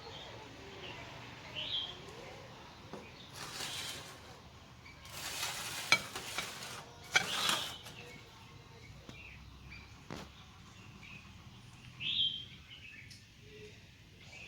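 Three short bursts of hissing sizzle, with two sharp utensil clicks among them, from fish frying in hot oil. A few bird chirps come near the start and near the end.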